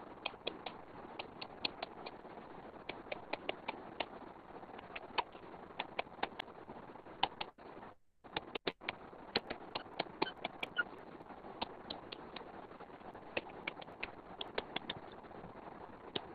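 Irregular light clicks of a stylus tapping on a tablet screen while handwriting, over a steady background hiss. The sound cuts out briefly about halfway.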